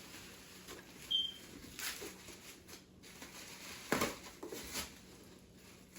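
A few faint taps and rustles of packaging being handled, with one short high squeak about a second in.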